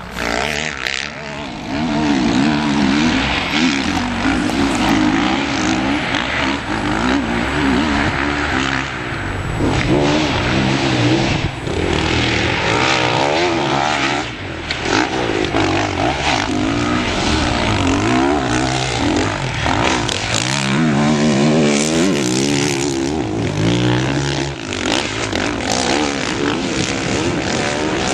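Motocross dirt bike engine revving hard. The pitch climbs and drops again and again as the rider accelerates, shifts and backs off around the track.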